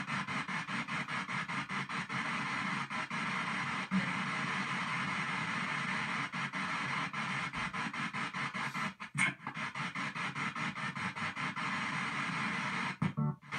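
P-SB7 spirit box radio sweeping the FM band in reverse at 200 ms per station: hissy static chopped into short pieces about five times a second. It drops out briefly twice, once past the middle and once near the end.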